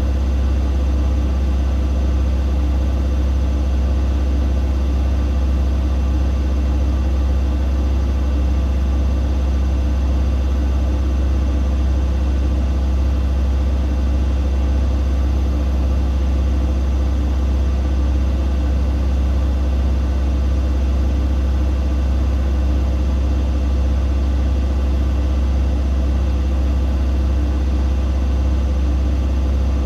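Siemens Siwamat iQ 716 washing machine running with a loud, steady low hum that does not change.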